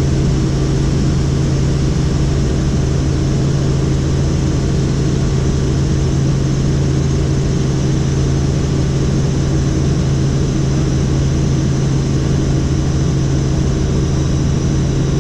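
Helicopter in flight: its engine and rotor running steadily, a constant loud low hum that does not change in pitch or level.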